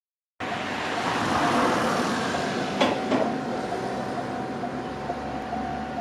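Japanese railway level-crossing alarm ringing, a repeating electronic tone at about two strikes a second, warning that a train is coming as the barriers lower. Two sharp knocks come about three seconds in, over a steady rushing noise.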